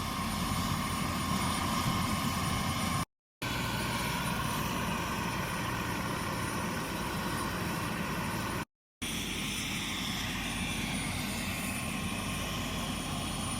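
Helicopter running steadily, a continuous engine and rotor noise with a steady whine, cut off twice by brief edits to silence.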